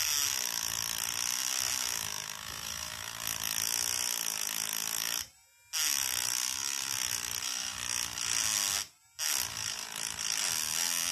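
Battery-powered vibrating engraving pen buzzing as its tip scratches across a metal medal, its pitch wavering under the pressure of writing; it cuts out briefly three times, about five, nine and ten and a half seconds in. The pen vibrates so hard that writing with it is difficult.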